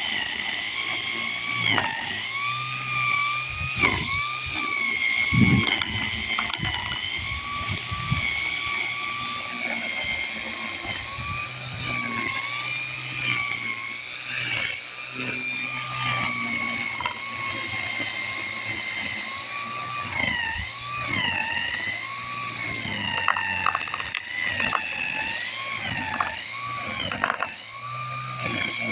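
Makita MUR1601N corded electric grass trimmer running with a steady high motor whine over a hiss. The pitch dips briefly again and again as the motor takes load cutting grass, then recovers. Scattered clicks come near the end.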